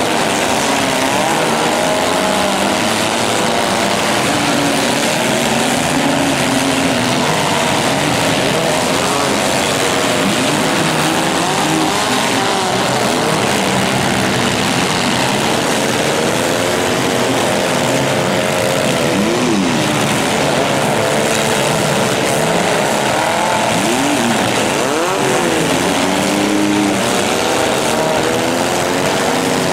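Engines of several compact demolition-derby cars revving at once, their overlapping pitches rising and falling continuously.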